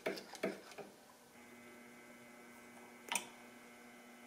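Small clicks and knocks from the brake lever and master cylinder parts being handled, a few in the first second and one sharp click about three seconds in, over a steady faint hum.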